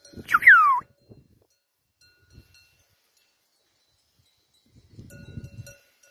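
Bells on a flock of brează sheep clinking on and off, with a short, loud whistle falling in pitch about half a second in. A spell of low rustling comes near the end.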